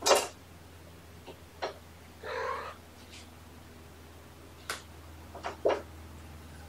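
A cat meows once, briefly, about two seconds in, after a loud sharp sound right at the start, with a few short taps and clicks scattered around it.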